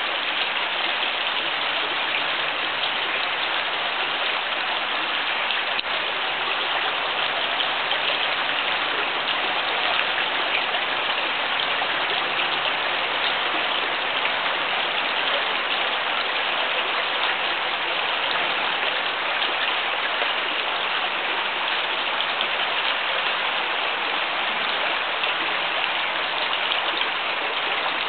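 Steady rain, a dense pattering hiss that holds even throughout.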